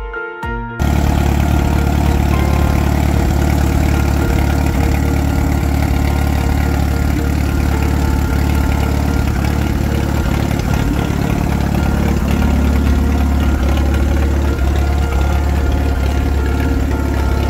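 A 1945 Allis-Chalmers Model C tractor's small four-cylinder gasoline engine idling steadily. It comes in just under a second in, as a short stretch of music cuts off.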